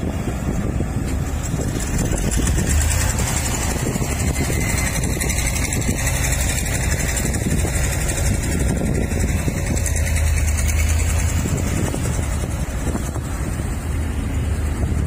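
Diesel engines of earthmoving machinery running steadily, a continuous low rumble with no distinct knocks or revving.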